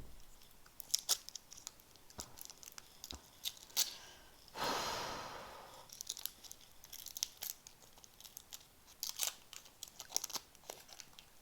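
Close-up chewing of a chewy sour apple candy: irregular wet mouth clicks and smacks, with one longer rushing noise about four and a half seconds in that fades over a second or so.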